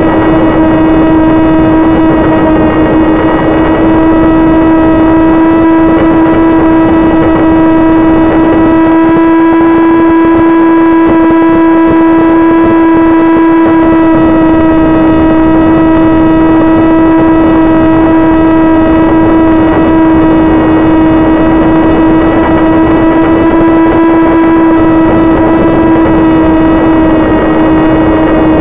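Electric motor and propeller of an AR900 flying wing running at a steady throttle, a loud, even-pitched whine, heard from the onboard camera with wind rushing over the microphone.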